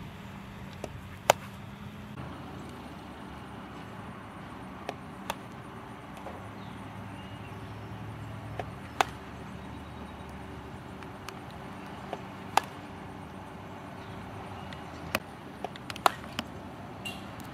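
SKLZ Lightning Bolt small-ball pitching machine throwing mini foam balls about every four seconds. Each pitch is a pair of sharp clicks: a quieter clack as the machine releases the ball, then about half a second later a louder crack as the bat hits it. A steady low hum runs underneath.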